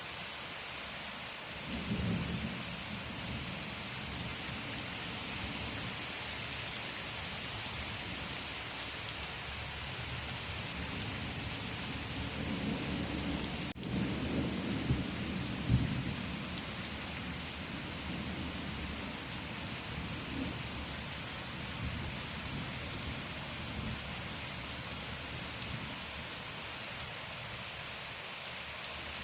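Steady rain hissing, with low rolls of thunder rumbling about two seconds in and again through the middle.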